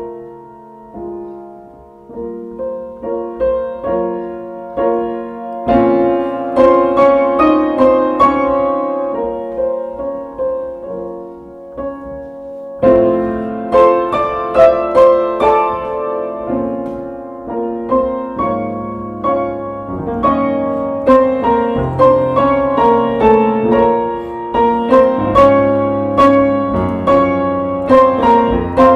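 Piano music: a run of single notes and chords that starts soft, swells louder about six seconds in, and opens a new, fuller phrase about halfway through, with deep bass notes joining after that.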